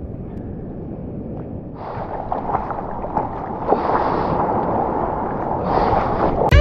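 Ocean water sound with wind noise on the microphone: a steady rush that grows louder about two seconds in and swells roughly every two seconds, as from surf washing.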